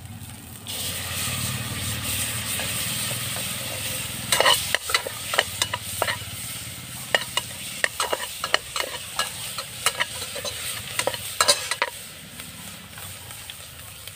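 Liquid is poured into a cooking pot with a steady hiss, then a metal ladle stirs the pot, clinking and scraping against its metal sides in quick irregular knocks.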